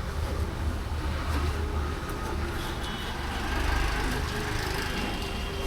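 Road traffic: a steady low rumble of motor vehicle engines.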